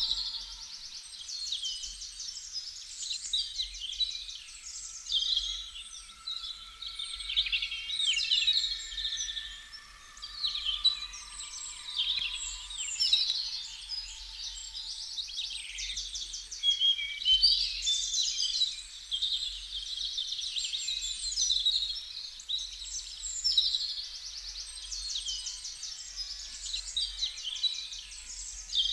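Birdsong played back from a vinyl record: many birds chirping and trilling in dense, overlapping calls. The last held notes of the music fade out about a second in, and a faint low hum runs underneath.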